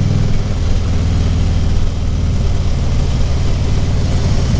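Harley-Davidson Ultra Limited's V-twin engine running steadily, its low note shifting slightly a couple of times.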